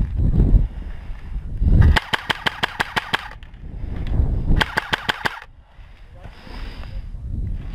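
Airsoft gun firing two rapid bursts: about a dozen sharp shots near two seconds in, then a shorter burst of about six shots around four and a half seconds in. Low rumbling noise comes and goes between them.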